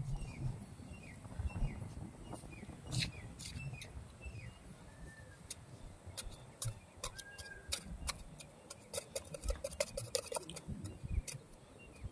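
Small hand trowel digging and scraping in soil: an irregular string of short scrapes, knocks and soft thumps.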